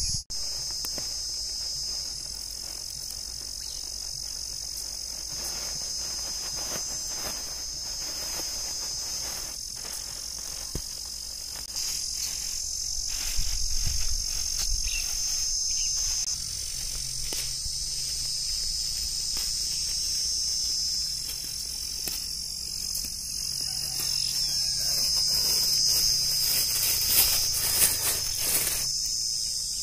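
Steady high-pitched insect chorus, louder from about twelve seconds in. Plastic bags crinkle briefly near the end.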